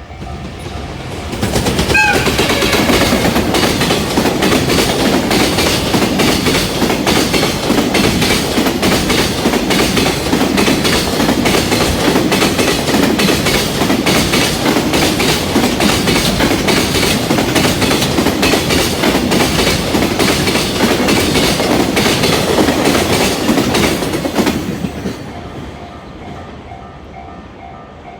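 An EF210 electric freight locomotive and its long train of Koki container wagons pass at high speed. A loud, steady rumble of wheels with rapid rail-joint clicking builds within the first two seconds, runs for over twenty seconds, and falls away about 24 seconds in. The level-crossing warning bell rings in a steady repeating pattern at the start and again once the train has gone.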